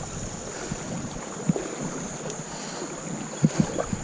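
Shallow creek water running over rocks, with a few splashes as a person wades through it, the clearest about one and a half seconds and three and a half seconds in.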